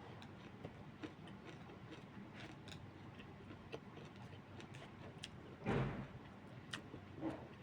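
Quiet eating sounds: faint scattered clicks of chewing and of a utensil on a plate, with a louder short bump or rustle about six seconds in.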